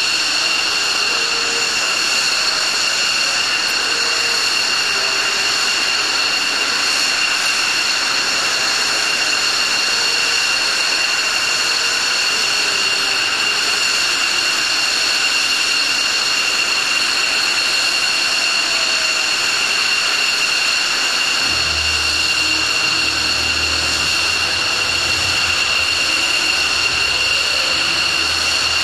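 F-16 fighter jets' engines idling on the ramp: a steady, loud, high-pitched whine made of several held pitches. About three-quarters of the way through, a low rumble joins.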